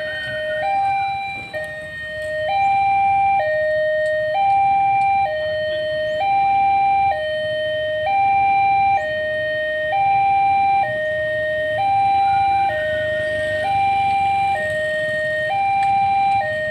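Two-tone electronic warning signal alternating steadily between a high and a low note, switching about once a second. It gets louder about two and a half seconds in.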